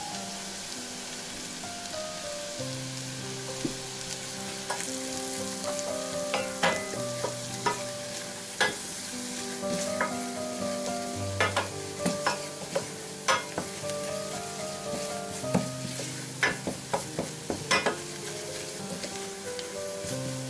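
Butter, onion and flour frying in a stainless-steel saucepan with a steady sizzle while a wooden spoon stirs the roux, knocking and scraping against the pan many times through the middle of the stretch.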